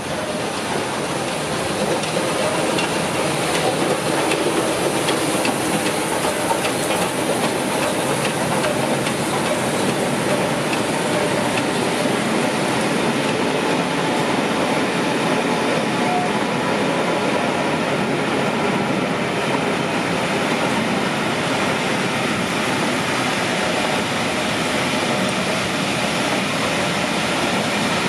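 Steam-hauled passenger train arriving at a station behind Merchant Navy class locomotive 35018 British India Line. Its coaches roll past with a steady rumble of wheels and a clickety-clack over the rail joints.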